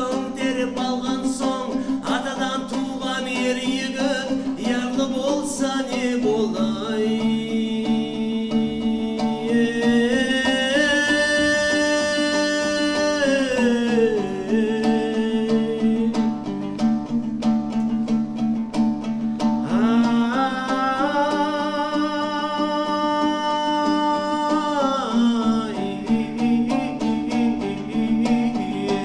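A man singing a Nogai folk song over an ensemble of plucked dombras, with a steady low drone beneath. The voice twice rises into long held high notes and then falls back.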